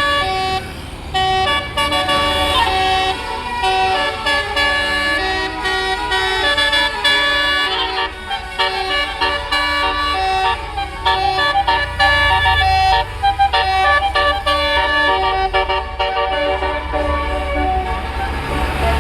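Tour bus's Basuri telolet musical air horn playing a melody of held notes that step up and down in pitch, with faster runs of short notes in the middle, over a low engine rumble.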